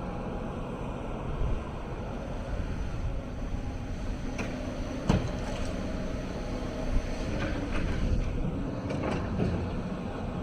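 Hyundai 290 excavator's diesel engine running steadily, with a few sharp knocks and clanks over it, the loudest about five seconds in.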